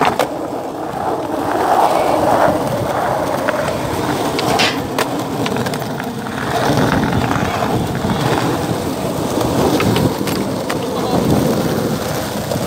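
Skateboard wheels rolling steadily over rough asphalt, with a few sharp knocks from the board, twice in quick succession about halfway through.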